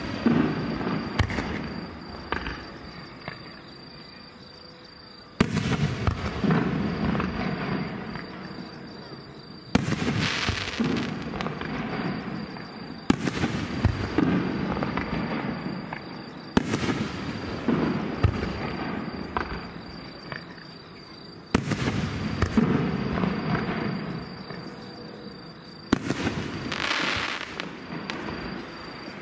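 Aerial firework shells bursting one after another, about eight sharp booms a few seconds apart, each trailing off in a long rumbling, crackling decay.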